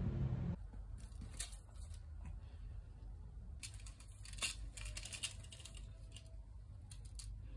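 Faint scattered clicks and rustles of small objects being handled, over a low steady hum, after background music cuts off about half a second in.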